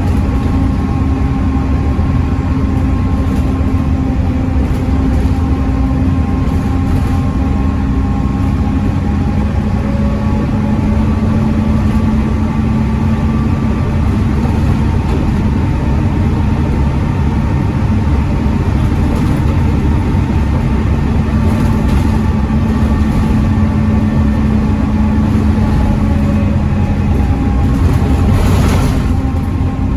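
Volvo D7C 7.3-litre diesel engine of a Volvo B7TL double-decker bus running under way, heard on board. The engine note shifts in pitch a few times, with a brief rushing noise near the end.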